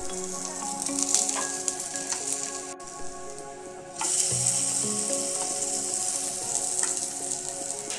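Food frying in a pan, a steady sizzle that fades for about a second near three seconds in, then comes back louder from about four seconds in.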